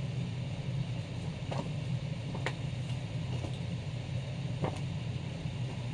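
Steady low background hum, with a few faint ticks, about three of them, spread through it.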